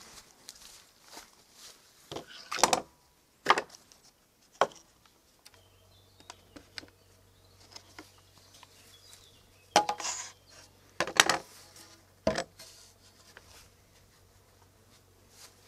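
Long wooden board being handled and laid on a wooden workbench: a few sharp wooden knocks, three in the first five seconds and three more in a cluster near the end.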